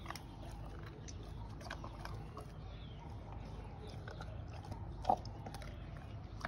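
Boerboel puppy eating a boerewors sausage: faint scattered chewing and mouth smacks, with one sharper click about five seconds in, over a steady low background rumble.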